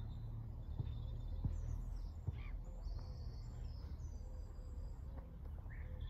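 Open-air ambience: a steady low rumble with small birds chirping now and then, and a few faint clicks.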